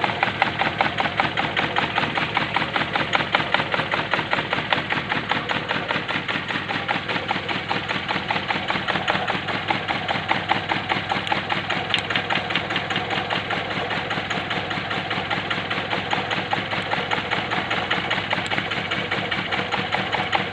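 2005 Honda Civic engine idling unevenly with a regular pulsing beat: a misfire, which the owner puts down to a spark plug.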